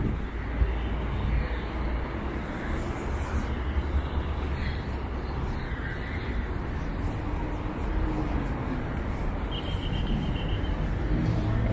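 Steady city street ambience with traffic noise.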